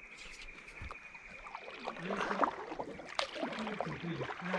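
Water splashing and sloshing close to a kayak as a hooked Australian bass is played in, with scattered clicks and knocks, busiest in the second half. A steady high-pitched whine runs underneath.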